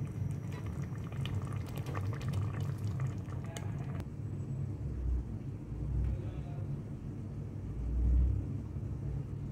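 Minced meat and potato gravy bubbling and popping in an open aluminium pressure cooker, over a steady low hum, until a sharp click about four seconds in. After that come low rumbles.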